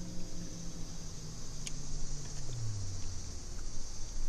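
Open-air background on a boat: a steady high buzz like insects, with a low motor hum that slides down in pitch about halfway through, and one sharp click.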